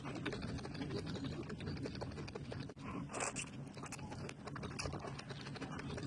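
Close-miked eating sounds: a steady run of wet chewing and crunching clicks.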